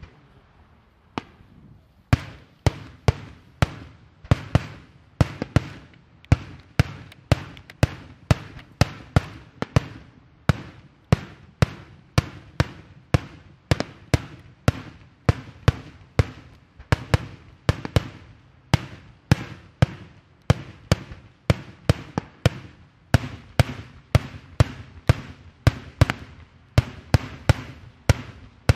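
Daytime fireworks bursting in the air: a long, rapid string of sharp bangs, two or three a second, starting about two seconds in after a short lull.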